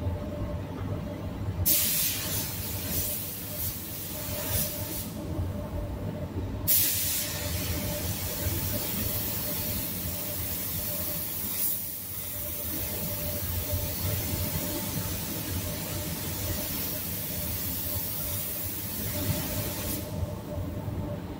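DeVilbiss gravity-feed spray gun hissing as it sprays clear coat: a few short bursts from about two seconds in, then one long continuous spray from about seven seconds until a second or so before the end. Under it, the steady low drone of the paint booth's extraction fan.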